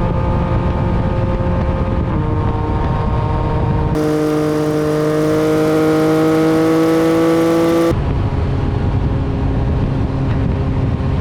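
Motorcycle engine running under way, heard from on board the bike, its note dipping slightly about two seconds in and then climbing slowly as it accelerates. The sound changes abruptly about four and eight seconds in, swapping between a version buried in low wind rumble with the highs cut off and a cleaner, fuller version of the same engine.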